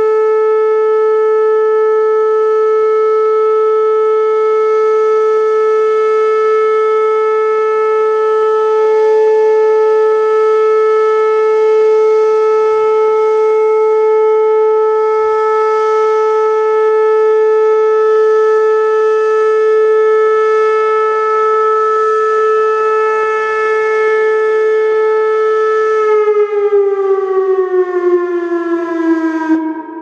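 Whelen WPS 2810 electronic outdoor warning siren sounding a steady tone, loud and unwavering. About four seconds before the end its pitch slides downward, and then the sound drops away suddenly.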